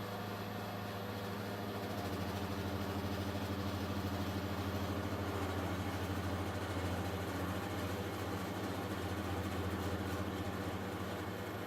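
CNC milling machine running while cutting aluminium dry, without coolant: a steady mechanical hum with a strong low drone that swells slightly about two seconds in.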